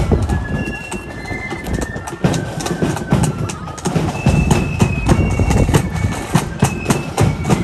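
Footsteps of a column of marchers on a tarmac road, many shoes tapping and scuffing out of step, over a low rumble, with a few faint high held notes from a band in the distance.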